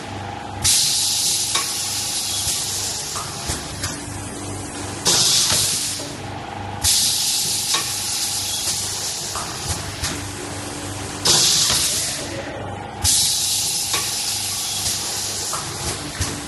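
Small automatic paper plate forming machine running through its cycle. Its pneumatic press lets out loud bursts of hissing air in pairs about two seconds apart, repeating every six seconds or so, over a steady machine hum with faint clicks.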